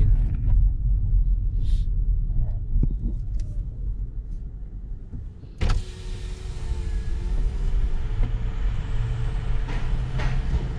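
Car rolling slowly with a low engine and road rumble; about halfway through, an electric power window starts going down, a thin motor whine with a hiss of outside noise coming in through the open window.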